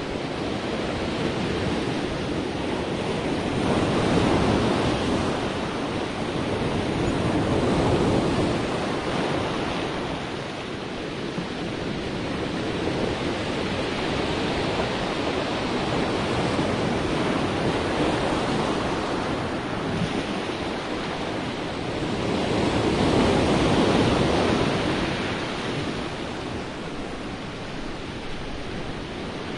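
Sea waves washing in: a continuous rush of surf that swells and ebbs, with the biggest surges a few seconds in, around the middle of the first third, and again well past the middle.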